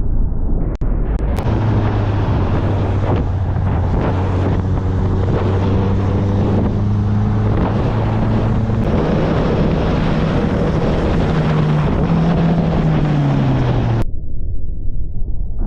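Honda 650 inline-four motorcycle engine running steadily under heavy wind noise on the microphone. Its pitch steps down over the last few seconds as the bike slows.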